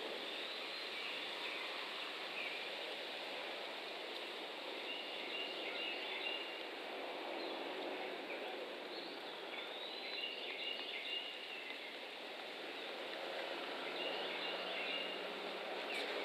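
Steady outdoor background noise with short, high bird chirps in three brief clusters, about five, ten and fourteen seconds in.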